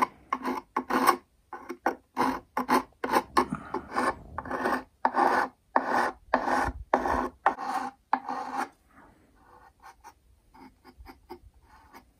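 Hand file scraping back and forth across the sawn end of a violin fingerboard to round its corners, about two strokes a second. The strokes stop about nine seconds in, leaving only faint light scrapes.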